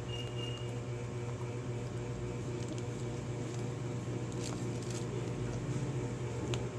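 Steady low background hum with a few faint clicks, and a brief faint high beep near the start.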